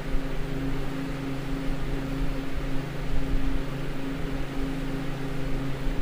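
Walk-in freezer's refrigeration unit running, its evaporator fans blowing: a steady hum with an even rush of air and a low rumble.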